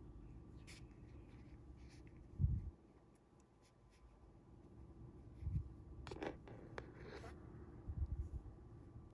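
Fingers handling and pulling nylon monofilament fishing line while tying a knot: faint rubbing and scratching of fingers on the line, with a few dull low bumps, the loudest about two and a half seconds in.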